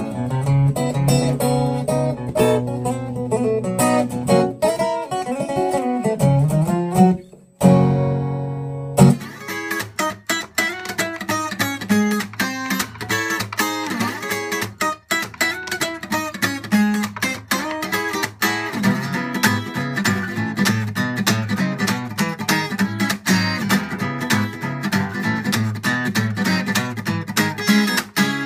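Solo acoustic guitar playing phrases: picked melodic lines and chords, with a chord left ringing shortly before nine seconds in. From about nine seconds on it plays a fast, percussive strummed rhythm with many sharp string attacks.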